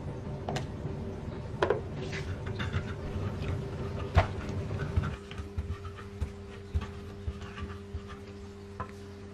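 A pestle pounding and grinding chillies, shallots and garlic with salt in a mortar (cobek and ulekan) as sambal is made. Irregular knocks and scrapes, most frequent in the first half, over a steady low hum.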